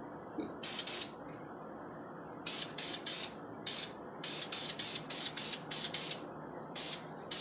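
Aerosol can of Krylon Dual Superbond black satin spray paint hissing in many short bursts, grouped in quick clusters, as the paint is sprayed onto a stainless tumbler. A faint steady high whine runs underneath.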